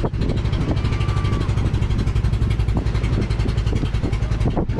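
A small engine running steadily with a fast, even beat, with wind buffeting the microphone over it.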